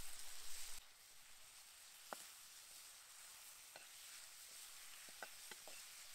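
Tomato and vegetable sauce sizzling in a frying pan as a spatula stirs in tomato paste. The sizzle is louder for the first second, then drops to a faint hiss with a few soft ticks.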